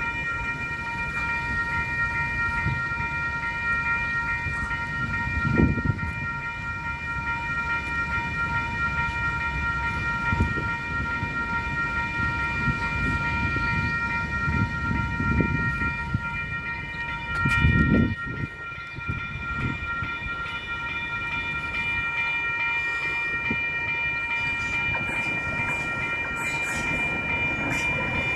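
Level crossing warning bell ringing steadily while the barriers are down, over a low rumble. Near the end an electric train comes up to the crossing.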